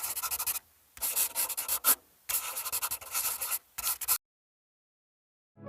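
Computer keyboard typing sound effect: fast, clattering keystrokes in four short bursts, stopping about four seconds in.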